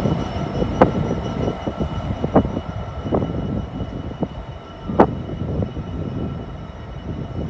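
Freight train's hopper wagons rolling past on the rails: a steady heavy rumble of wheels on track with several sharp irregular clanks, the loudest about five seconds in.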